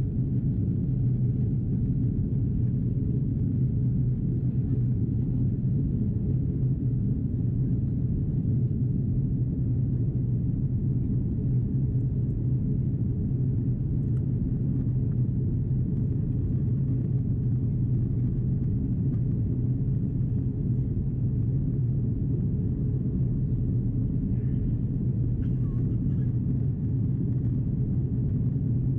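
Steady cabin noise of an Airbus A330-343 airliner in descent, with engine and airflow rumble and a steady low hum.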